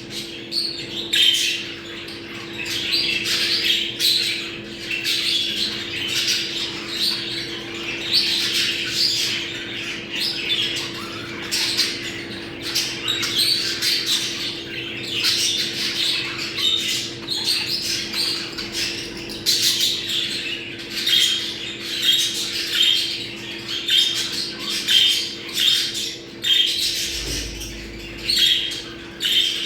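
Budgerigars chattering and warbling non-stop in dense, overlapping chirps and squawks: the budgie mating chatter used to bring birds into breeding condition. A steady low hum runs underneath.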